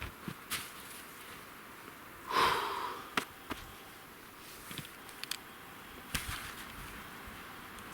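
Scattered light clicks and crunches of a person moving about in snow, with one brief louder rustle about two and a half seconds in.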